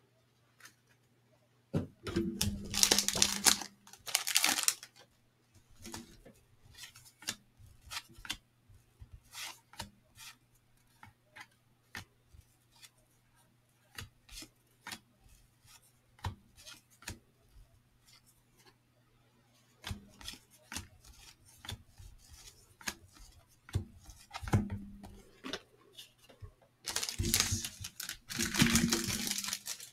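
Cellophane wrapper of a 1989 Fleer baseball cello pack being torn and crinkled open, once about two seconds in and again near the end. In between come light clicks and slides of the cardboard trading cards being flipped through by hand.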